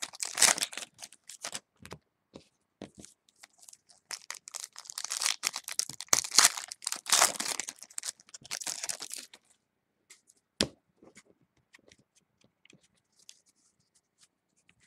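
Trading-card pack wrappers being torn open and crinkled, in two long bouts of tearing. Near the end comes a single sharp tap, then a few faint clicks.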